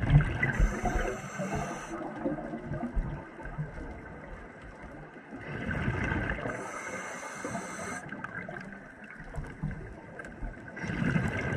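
A scuba diver breathing through a regulator: a breath and a gush of gurgling exhaled bubbles, repeating about every five and a half seconds.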